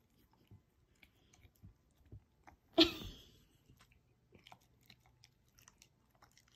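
German shepherd puppy chewing and mouthing a piece of banana: scattered small, quiet chewing clicks, with one louder short sound about three seconds in.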